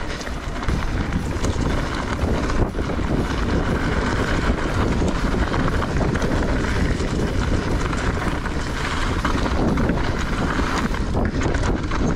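Wind rushing over the microphone and tyres rolling on a dirt trail as a Giant Reign E+ electric mountain bike is ridden, with an occasional knock or rattle from the bike.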